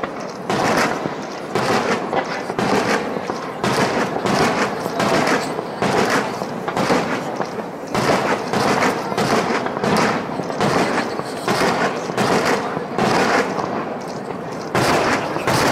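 Fireworks going off over the sea in a rapid, continuous run of bangs and crackles, several a second, rising and falling in loudness without a break.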